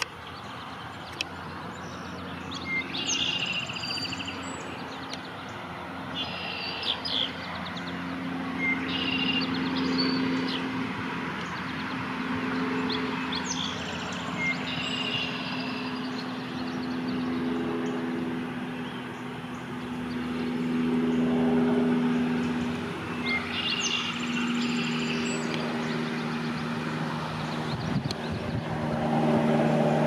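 Eastern bluebird singing short warbled phrases, repeated every few seconds, over a steady low engine drone.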